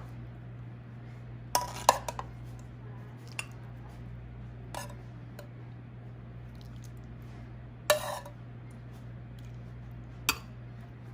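A metal utensil knocking and clinking against a cooking pot: a quick cluster of clinks about two seconds in, then single knocks spaced a few seconds apart, over a steady low hum.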